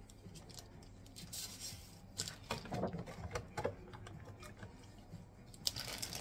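Stiff rice paper spring-roll wrappers clicking and crackling as gloved hands handle them and dip them in a bowl of water, with two short bursts of rustling, about a second in and near the end.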